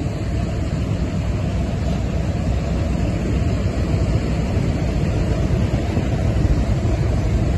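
Steady low rumble with no distinct events: wind buffeting the microphone.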